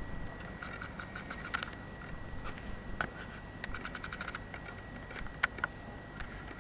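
Handheld camcorder's own noise: a faint steady high electronic whine, with short bursts of rapid ticking and a few sharp clicks from handling or its mechanism.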